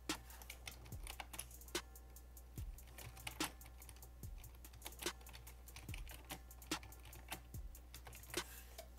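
Typing on a computer keyboard: a quick, irregular run of keystroke clicks. Faint background music with a steady beat plays underneath.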